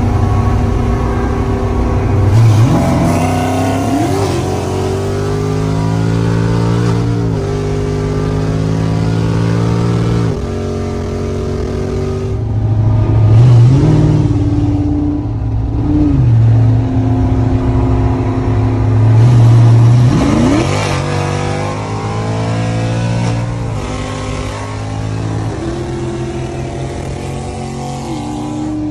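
Manual-transmission Shelby GT500's supercharged V8 at full throttle in a roll race. Its pitch climbs and then drops sharply several times as it is run through the gears.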